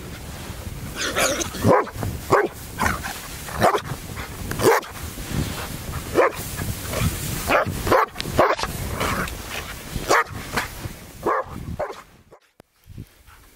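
Hovawart dog barking repeatedly: about a dozen short, loud barks at irregular intervals, falling quiet near the end.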